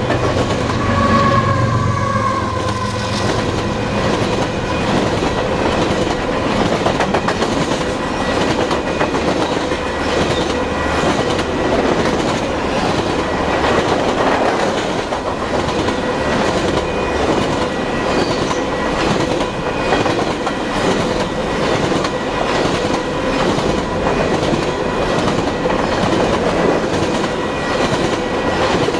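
A long string of empty covered grain hopper cars rolling past at close range: a steady rumble with rhythmic wheel clatter over the rail joints.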